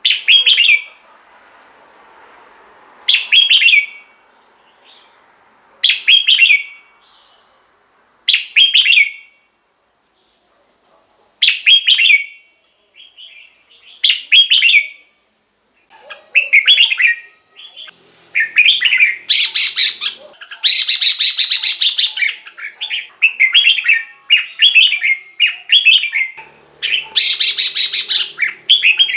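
Red-whiskered bulbul singing: loud, short whistled phrases about every three seconds, then from about halfway through a faster, near-continuous run of phrases.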